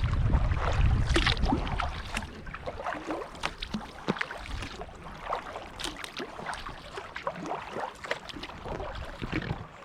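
Kayak paddling on calm water: irregular small splashes and drips from the paddle blades and water lapping at the hull. A low wind rumble on the microphone fades out over the first two seconds.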